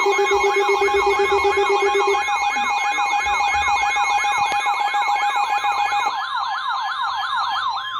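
Electronic emergency-alert tones: a siren-like warble sweeping up and down about four to five times a second, layered over steady tones. One of the steady tones drops out about six seconds in.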